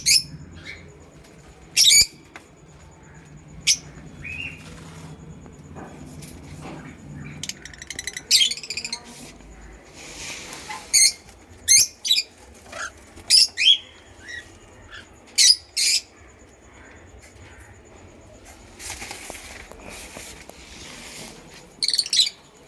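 Caged cockatiels and lovebirds giving short, sharp, high-pitched calls, about a dozen spread through, with a brief flutter of wings about halfway and again near the end.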